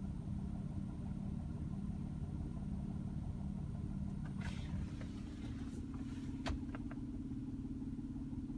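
2004 Nissan Murano's 3.5-litre V6 engine running steadily with the knock that the owner is recording. About halfway through, the engine note shifts to a new steady pitch, and a few sharp clicks follow.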